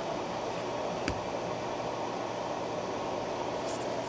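Steady ventilation hum of an office room, with a single light click about a second in.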